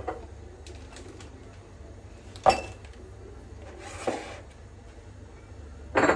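Kitchen knocks and clinks of glassware and cookware being handled: a sharp knock about two and a half seconds in, a brief rustling clink near four seconds, and a longer clatter near the end, over a low steady hum.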